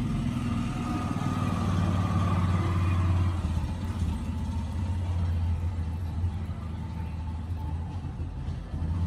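Steady low rumble of background vehicle noise, a little louder in the first few seconds and easing slightly after.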